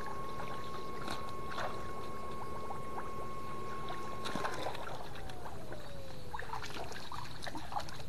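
Electric fishing shocker (setrum) whining at a steady high pitch. After a click about four seconds in, the whine slides down in pitch and fades away. Light splashing of water runs throughout.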